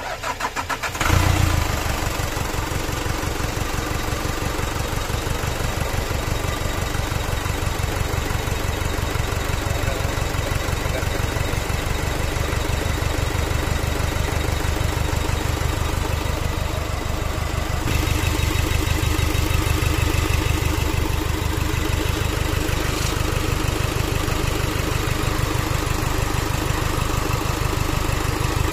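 Turbo diesel engine cranked by its starter, catching about a second in and settling into a steady, rhythmic idle, a little louder and brighter from about two-thirds of the way through.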